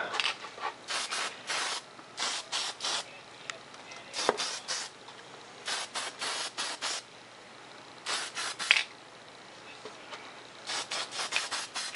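Aerosol spray-paint can sprayed in many short hissing bursts, each under a second, with brief pauses between them, while applying a second coat of paint.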